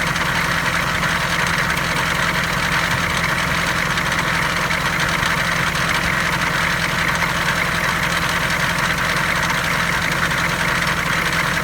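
Food truck's engine idling steadily, loud throughout.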